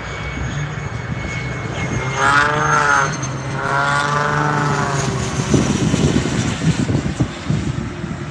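Twin-engine business jet on final approach passing low overhead with its gear down: a steady engine whine and rumble that swells to a wavering, sweeping roar for a few seconds in the middle, then a rougher, gusty low rumble as it moves away.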